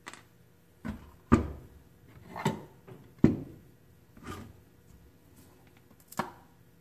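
Wooden boards knocking and scuffing against a wooden workbench as they are handled and set in place: about seven knocks and short scrapes, the two sharpest and loudest about a second and a half and three seconds in.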